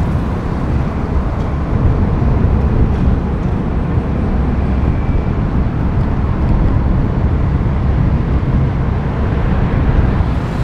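Steady road and traffic noise heard from a vehicle driving through a city at night: a continuous low rumble of tyres and engines with no distinct single events.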